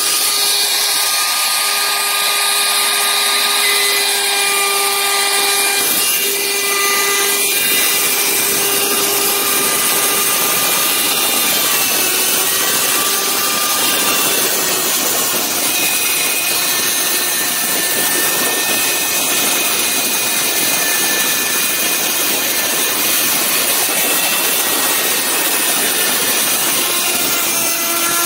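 DeWalt router with a bearing-guided trim bit running at full speed, cutting the overhanging plastic laminate flush along a countertop edge: a loud, steady motor whine with cutting noise, its pitch dipping slightly as the bit bites.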